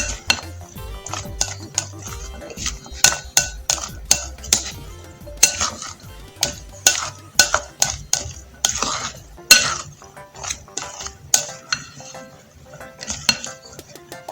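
A spoon stirring a bowl of chopped beans and vegetables, with irregular clinks and knocks of the spoon against the bowl.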